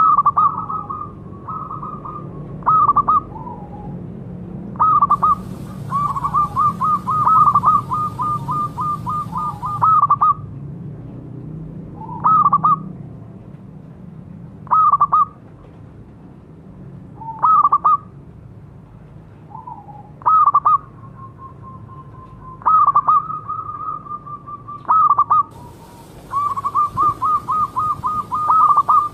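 Zebra dove (perkutut) cooing. Long runs of rapid, clipped notes alternate with single or paired notes a couple of seconds apart, all near one pitch.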